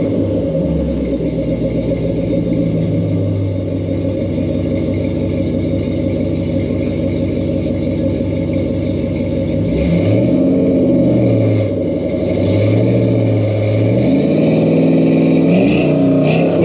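LS V8 in a C3 Corvette, on a Thrush and Flowmaster exhaust with an H-pipe and 2½-inch pipes, idling while it warms up from a cold start. In the second half the engine speed rises and falls several times.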